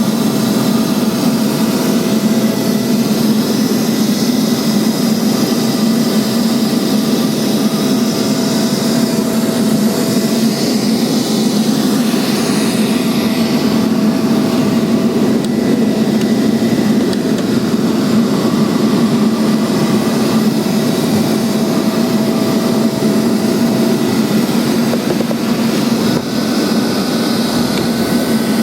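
Neato XV-21 robot vacuum running, its suction motor and brush giving a loud, steady hum, heard from a camera riding on top of it. A faint steady whine runs along with the hum and drops out near the end.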